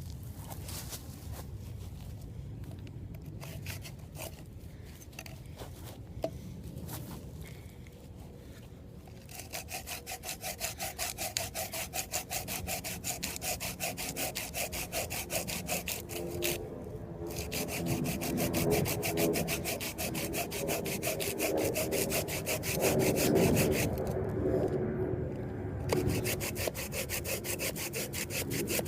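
Saw cutting through a cottonwood branch in quick, even back-and-forth strokes, starting about nine seconds in, with two short pauses.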